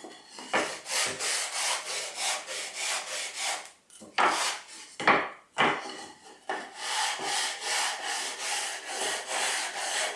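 Sandpaper on a hand sanding block rubbed back and forth along the edge of a wooden board, about three hissing strokes a second. The strokes break off briefly a little under halfway, with a few sharper, louder strokes, then carry on steadily as the edges are smoothed for assembly.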